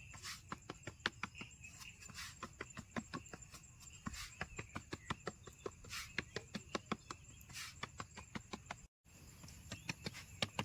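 Many irregular sharp taps and clicks, several a second, over a steady high insect trill.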